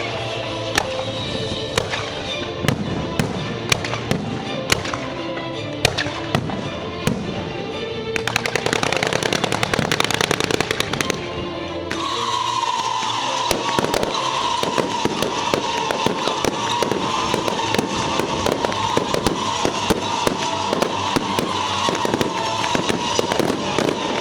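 Fireworks going off: scattered sharp bangs for the first third, then dense rapid crackling that carries on to the end. Music plays underneath, and through the second half a long held tone slowly sinks in pitch.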